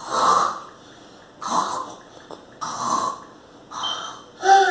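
A person imitating snoring: four breathy snore sounds in a row, about one every second and a quarter.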